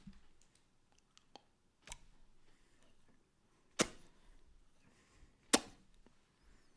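Three sharp mouth pops made one at a time, about two seconds apart. The second and third are the loudest, and a few faint lip clicks come before them.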